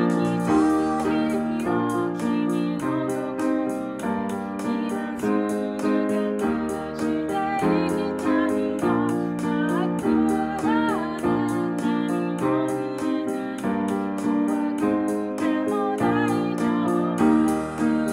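Upright piano played in chords with a woman singing the melody, over a backing beat track that ticks steadily.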